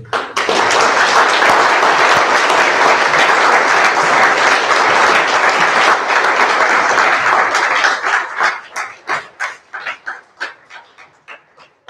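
Audience applauding: a dense, even round of clapping that thins into scattered single claps over the last few seconds before stopping.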